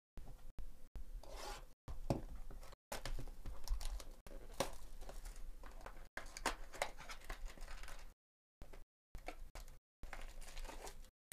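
Cellophane shrink-wrap being torn and peeled off a trading-card hobby box: crackling, crinkling plastic with sharp snaps and the cardboard box rubbing in the hands, in irregular stretches cut by short silences.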